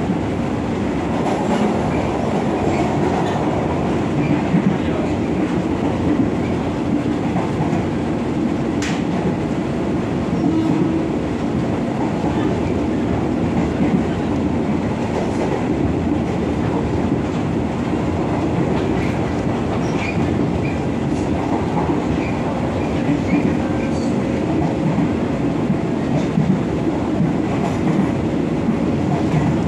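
KRL Commuter Line electric train running at speed, heard from inside the car: a steady rumble of wheels on the rails, with a few sharp clicks scattered through it.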